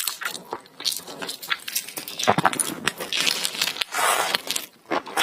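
Close-miked eating sounds: wet chewing and lip smacks with many short clicks, and a longer, noisier stretch of chewing or slurping about three seconds in.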